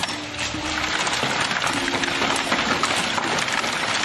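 Hailstones falling hard on a wooden deck and lawn, a dense, steady clatter of many small strikes.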